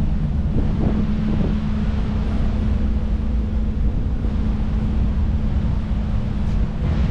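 Wind buffeting the microphone over a steady low rumble and constant hum from the moving cruise ship.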